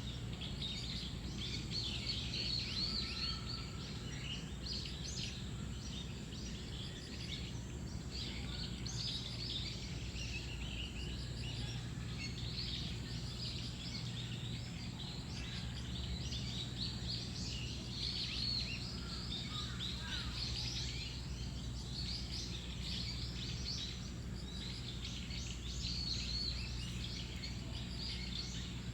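Many small birds chirping and calling at once, short overlapping notes and trills that never let up, over a steady low hum.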